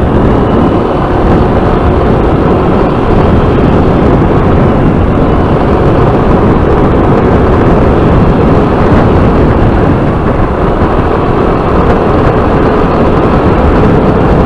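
Steady rush of wind and engine noise from a Yamaha NMAX 155 scooter under way, the wind dominating the onboard microphone.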